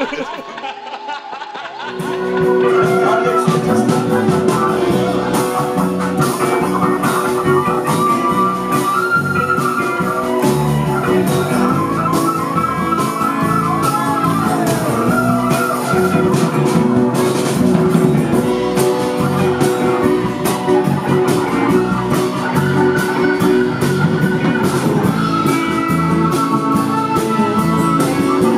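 Rock band playing an instrumental passage, guitars over a drum kit. It opens quieter and thinner, and the full band comes in about two seconds in.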